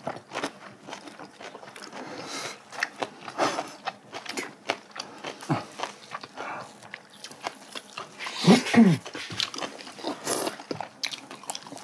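Close-miked eating sounds: lip smacks, chewing and slurping as pieces of spicy braised cod head are eaten and the meat sucked from the bones, with a short hum of voice about three-quarters of the way through.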